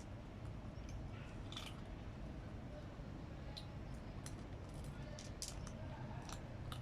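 A cat crunching dry food, with short crisp clicks coming irregularly about six times, over a low steady background rumble.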